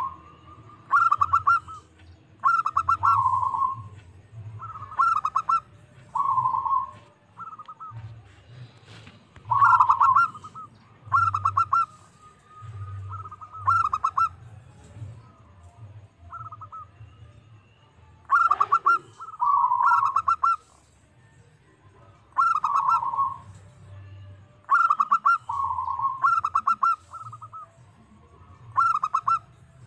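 Zebra dove (perkutut) singing: a string of short phrases, each a quick run of staccato coos ending in a longer, lower coo, repeated every second or two.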